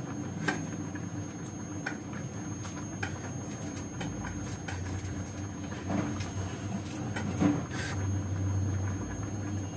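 Vegetables being cut by hand at a kitchen counter: scattered small clicks and scrapes, with a sharper click about half a second in and another about seven and a half seconds in, over a steady low hum.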